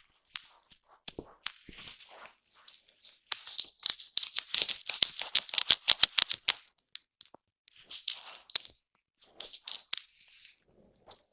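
Foam brush scratching and rubbing against a microphone, close up, with dense crackly clicks. The brushing comes in strokes, the busiest and loudest a few seconds in, then shorter bursts with brief pauses between them.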